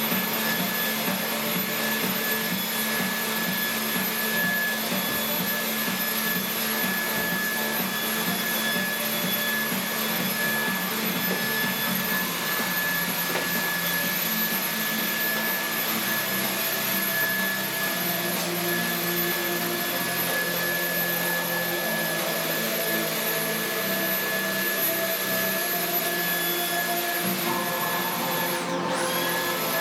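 Cordless stick vacuum cleaner running steadily, with a constant motor whine over rushing air. Near the end the whine dips briefly in pitch and comes straight back up.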